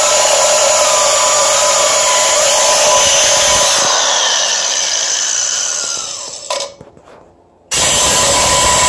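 Angle grinder with a cutoff wheel cutting into a Mazda Miata transmission casing, its motor whining steadily. About four seconds in it winds down with a falling pitch to near silence, then starts again abruptly near the end.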